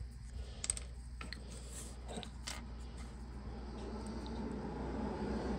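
Faint, scattered clicks and light rustling of hands handling a small tube of dielectric grease and plastic heat-shrink butt connectors, over a low steady hum.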